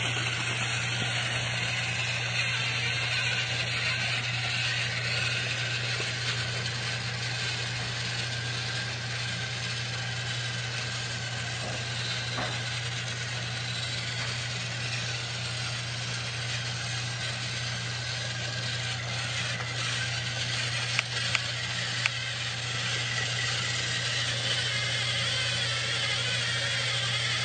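Battery-powered toy train's small motor running steadily: a constant low hum with a whirring hiss, and a few light clicks about three-quarters of the way through.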